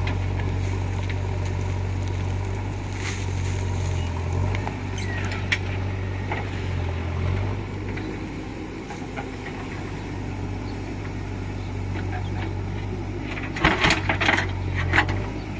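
JCB backhoe loader's diesel engine running steadily while the backhoe digs, its note heavier for the first few seconds and easing off in the middle. Near the end a quick cluster of sharp knocks and rattles as the bucket works in the stony soil.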